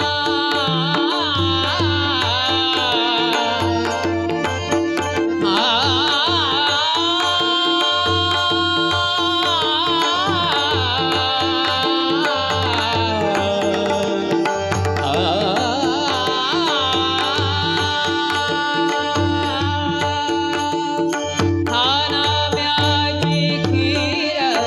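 Indian devotional music: a tabla-style hand drum keeps a steady beat under sustained drone notes, while a melody line weaves with gliding, ornamented bends.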